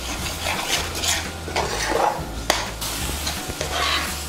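A metal spatula stirs and scrapes wet semolina and crushed pineapple halwa mixture around a nonstick frying pan, clinking sharply against the pan a couple of times. There is a light sizzle as the just-added water cooks into the roasted semolina, over a low steady hum.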